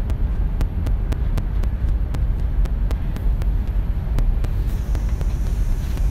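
Steady low rumble of a moving passenger train heard from inside the carriage, with light clicks every fraction of a second for the first four seconds or so.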